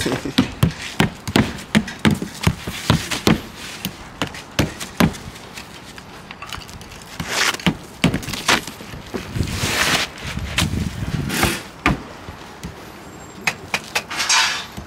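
Roofing hammer driving nails into asphalt shingles: an irregular run of sharp strikes, with a few short bursts of noise in between.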